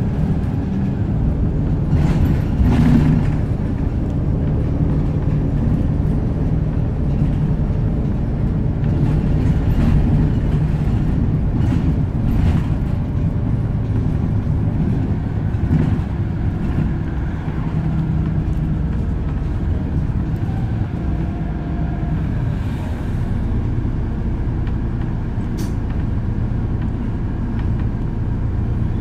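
Volvo B7RLE bus running along the road, heard from inside the passenger saloon: a steady low diesel engine and drivetrain drone with body rattles, strongest a couple of seconds in. There is a brief high squeak near the end.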